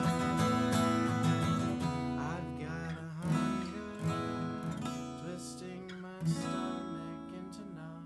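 Acoustic guitar strumming chords, gradually getting quieter; a last strum about six seconds in is left to ring out and fade.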